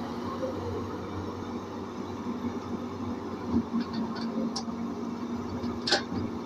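CAT E200B excavator's diesel engine running steadily, with a few light knocks and one sharp metallic knock about six seconds in.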